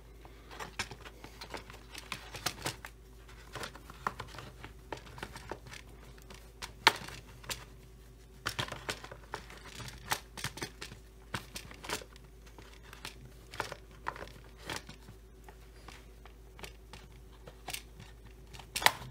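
Plastic starter housing of a Stihl 025 chainsaw being fitted and pressed onto the saw by hand. Irregular light clicks, scrapes and rustles of plastic against the saw body, with a sharper knock about seven seconds in and a quick cluster of clicks near the end.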